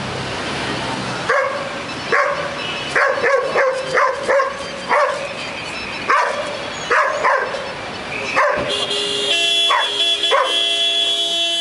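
A dog barking repeatedly: about a dozen short, sharp barks at irregular intervals. In the last few seconds a steady, many-toned sound joins the barking and then cuts off suddenly.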